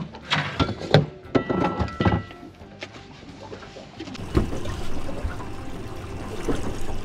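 Hollow metallic clanks and knocks, a few of them ringing briefly, as aluminium scuba tanks are lifted out of a boat's storage compartment. About four seconds in, a steady wash of water noise takes over, with scattered knocks.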